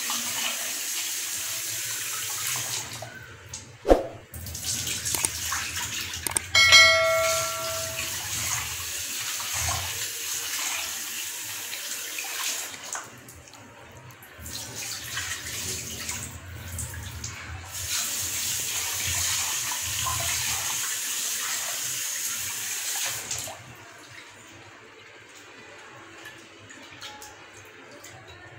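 Kitchen tap running into an aluminium pan of soaked toor dal and moong dal in a steel sink while a hand rubs and swirls the lentils to wash them. The water stops and starts a few times and is shut off near the end. A short metallic ring about seven seconds in.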